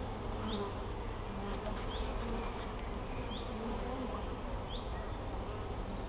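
A large swarm of honeybees clustered on a tree branch, the many bees buzzing together in a steady, dense hum.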